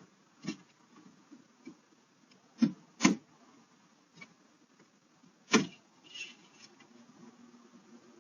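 A few sharp knocks or clunks, scattered and irregular, the loudest two coming close together near the middle and another about two-thirds of the way through, over a low steady background.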